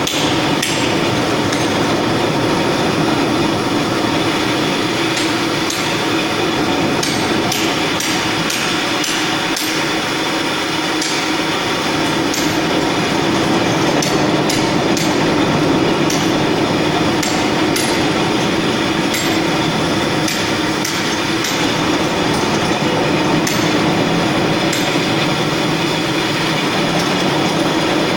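Spina TD 550 triple-head concrete floor grinder running on concrete: a steady grinding noise with a low hum, broken by irregular sharp clicks and ticks.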